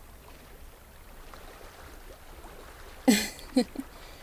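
Soft, steady water ambience like a lake or stream trickling. About three seconds in, a woman makes a short vocal sound in two quick parts.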